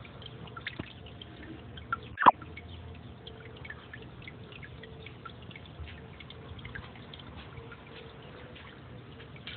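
Water dripping and trickling down a drilled rock into an aquarium, fed by a small pump, as many small drips. One louder sharp sound comes about two seconds in.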